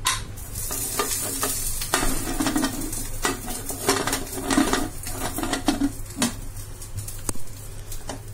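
Steel pressure cooker lid being fitted onto the cooker and closed: a run of irregular metal scrapes and clinks, with a single sharp click near the end.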